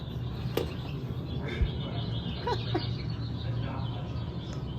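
A few short chirping bird calls around the middle, over a steady low hum.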